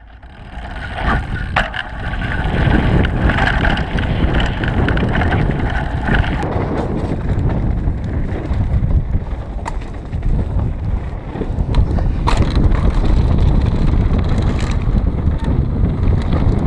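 Mountain bike riding fast down a trail: wind buffeting the microphone and a steady rumble of tyres over wooden plank features and then dirt, with a few sharp knocks from the bike.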